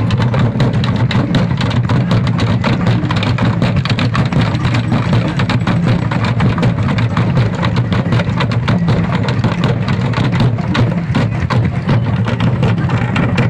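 Loud, fast drumming for a dance, dense beats over a heavy low rumble that holds steady throughout.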